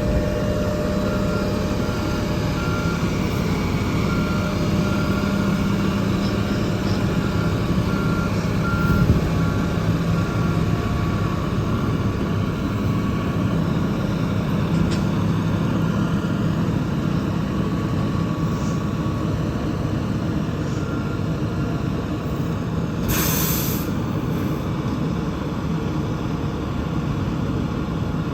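Fire truck's diesel engine running steadily while its reversing alarm beeps at an even rate, clearest over the first eight seconds and fainter after. About 23 seconds in, a loud hiss of air lasting about a second.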